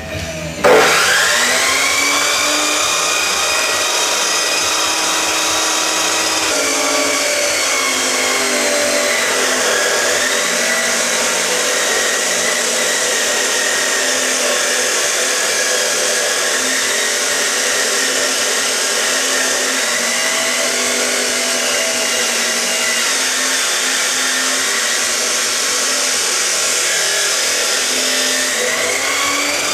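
Electric power tool motor spinning up with a rising whine, then running steadily for the rest of the time. Its pitch sags and recovers several times, as when the tool is pressed into work.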